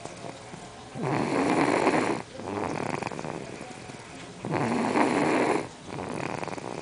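A young girl snoring in her sleep: two loud snores, each about a second long and roughly three and a half seconds apart, with quieter breathing between them.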